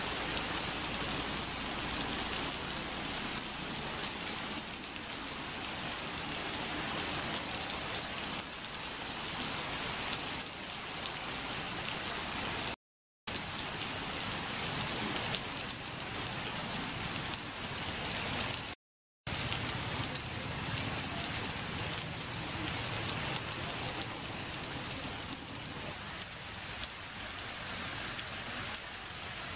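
Heavy rain falling steadily, a dense even hiss of drops on leaves, stone and puddles. It cuts out completely for a moment twice, about a third of the way in and again a few seconds later.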